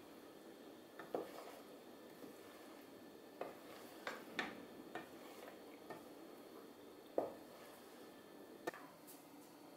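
Wooden spoon stirring thick red lentil puree soup in a stainless steel pot, knocking lightly against the pot's side at irregular moments, about eight times, over a faint steady hiss.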